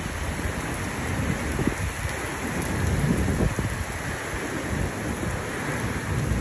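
Heavy rain falling steadily, a constant hiss, with a low rumble underneath that swells and fades.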